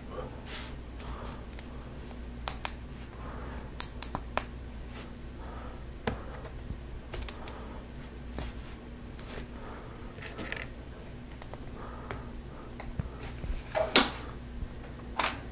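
Plastic Lego Technic pieces clicking and clattering as they are handled and pins and axles are pushed into beams: scattered, irregular sharp clicks, the loudest a little before the end.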